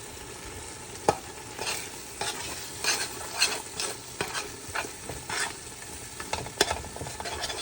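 A spoon stirring curry spices (garlic, onion, curry powder and turmeric) frying in oil in a pot, cooking down to a paste: repeated scraping strokes, roughly one every half second, over a steady sizzle.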